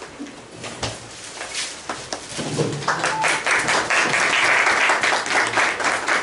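Audience clapping: a few scattered claps, then full applause from about three seconds in.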